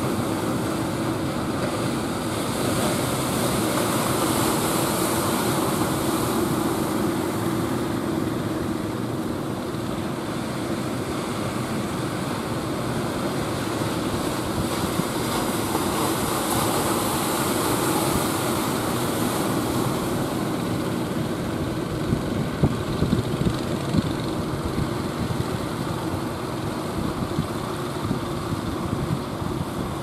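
Ocean surf breaking and rushing, with wind buffeting the microphone and an outrigger fishing boat's engine running steadily underneath.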